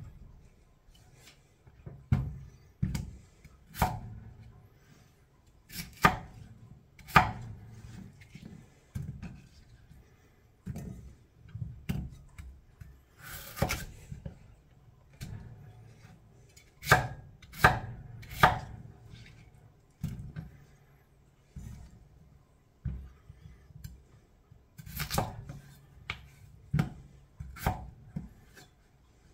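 Knife chopping potatoes: single sharp chops at an uneven pace, about one every second or two, some coming in quick pairs.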